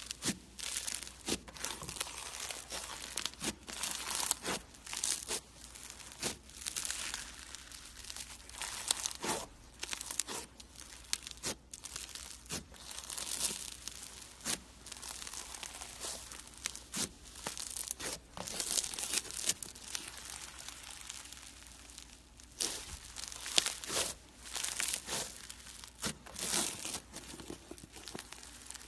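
Fluffy, crunchy blue slime squeezed and pulled apart by hand, giving irregular bursts of crackling, crinkling and tearing with brief pauses between squeezes.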